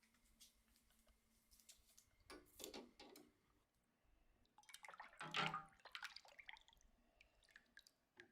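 Faint wet liquid sounds: two short bursts of splashing, the first about two seconds in and a longer one about five seconds in.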